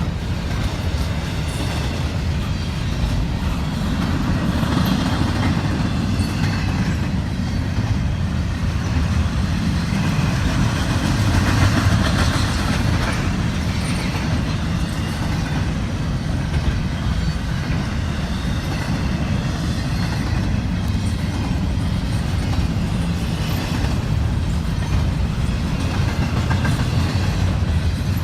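Intermodal freight train cars rolling past, a steady low rumble of wheels on the rails with no horn.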